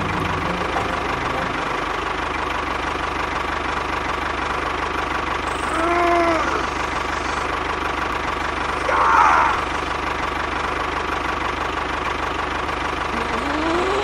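Tractor engine running steadily at an even pitch. A short pitched call, rising then falling, comes about six seconds in, and a brief bright chirp about three seconds later.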